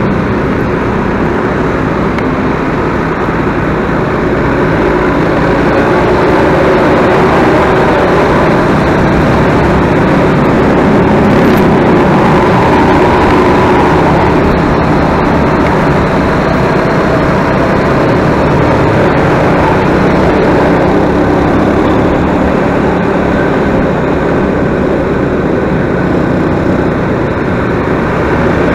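Vehicle on the move: steady loud engine hum and road noise with no breaks.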